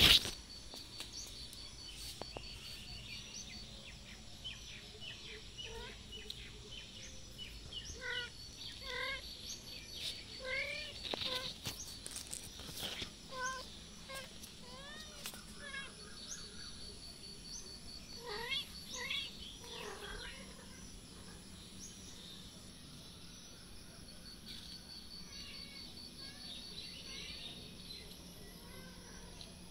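Kittens mewing in short, repeated high cries, bunched between about six and twenty seconds in, over a steady pulsing insect chirp. A sharp knock at the very start.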